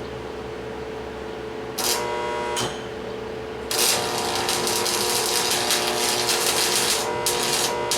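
A power tool working on metal runs in two bursts over a steady hum: a short one about two seconds in, then a longer, louder run from near four seconds that dips briefly near the end.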